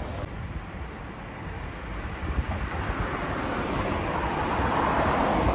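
A car approaching on the road: its tyre and engine noise grows steadily louder toward the end.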